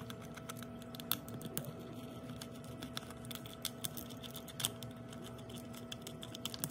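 Small screwdriver backing screws out of the plastic body of an iDog pup toy, with handling of the plastic case: a run of light, irregular clicks and ticks.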